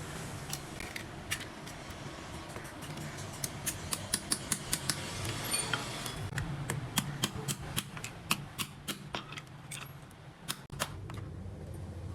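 Quick, irregular sharp clicks and taps, two to four a second through the middle of the stretch, typical of small metal parts being handled and worked. A steady low hum runs underneath.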